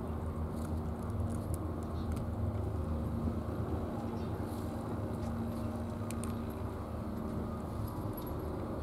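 A cat crunching dry kibble, heard as faint scattered clicks over a steady low rumble.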